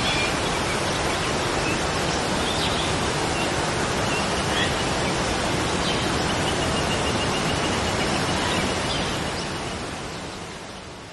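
Steady roar of a waterfall pouring into its plunge pool, with a few faint high bird chirps; the roar fades out over the last couple of seconds.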